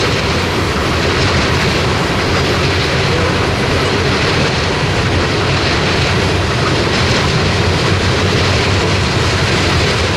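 Freight train of coal cars rolling past, a steady, unbroken sound of steel wheels on rail.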